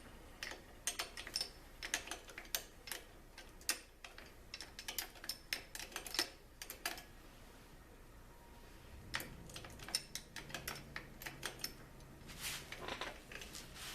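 Scattered light clicks, taps and clinks of small metal parts and tools being handled, with a lull about halfway through.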